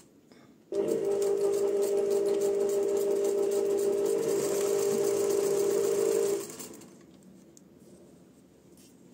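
Electric sewing machine stitching a seam at a steady speed: it starts abruptly just under a second in, runs for about five and a half seconds, then slows and stops.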